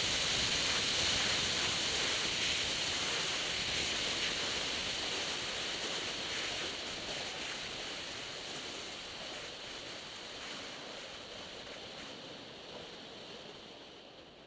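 Grob G109 motorglider's engine and spinning propeller heard from a wingtip-mounted camera as a steady rushing noise while the aircraft taxis on grass, fading gradually away toward the end.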